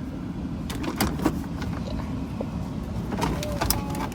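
Plastic trim around a car's gear shifter being pried and wiggled loose, with a few sharp clicks about a second in, over a steady low hum.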